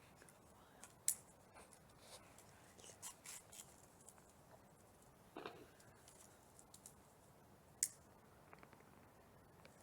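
Faint scattered clicks and rustles of small objects being handled, with two sharp, louder clicks, one about a second in and one near the end.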